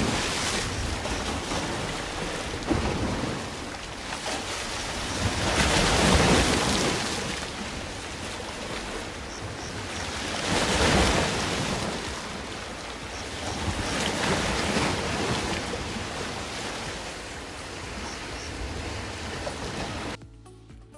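Sea surf washing onto a beach, swelling and fading every four to five seconds, with wind rumbling on the microphone. It stops suddenly near the end.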